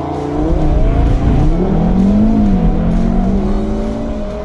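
A performance car's engine pulling hard under acceleration, its pitch gliding slowly up and down over a deep rumble.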